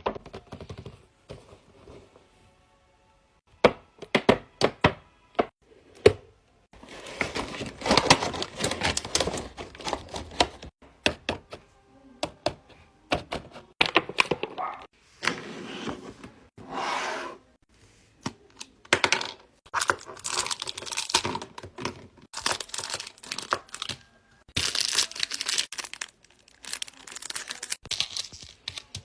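Fidget toys handled close up: a run of sharp clicks and snaps about four seconds in, then repeated bursts of crinkling, tearing noise mixed with more clicks.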